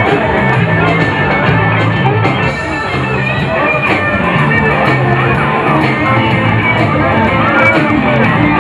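Live rock band playing loud amplified music, electric guitar over a repeating bass line, heard from within a dense crowd.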